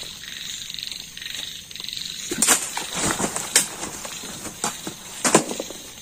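Night insects chirping in a steady pulsing chorus. About two seconds in it is broken by a run of sharp clatters and rustles, the loudest around three and a half and five seconds in.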